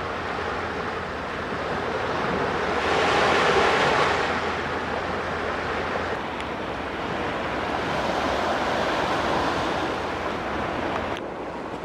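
Sea waves washing onto the shore, swelling about three seconds in and again near eight seconds, then cutting off abruptly near the end.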